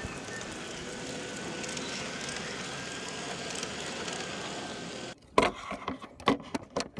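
Garden-scale model streetcar running along its track: a steady rolling noise with a faint steady motor whine. About five seconds in, the sound cuts out and gives way to a run of sharp clicks and knocks.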